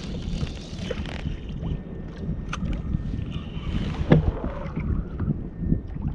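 Wind buffeting the microphone over water lapping and splashing against a fishing kayak's hull, with a few short knocks, the loudest about four seconds in.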